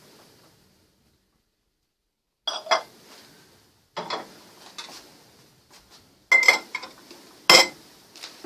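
Metal kitchen utensils clinking against cookware while lard is being rendered: bursts of sharp ringing clinks starting about two and a half seconds in, the loudest near the end.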